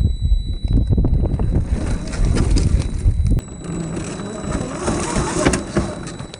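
Radio-controlled rock-crawler truck driving over dirt and gravel: tyres crunching and a faint steady high whine from its electric motor and gearing. Heavy wind buffeting on the phone's microphone in the first half, easing about three and a half seconds in.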